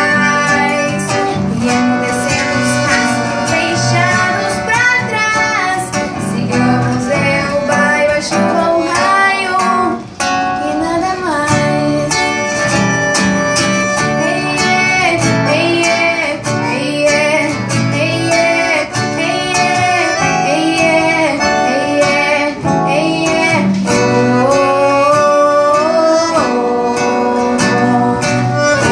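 A girl singing solo in Portuguese, a gaúcho regional song, accompanied by acoustic guitar and accordion.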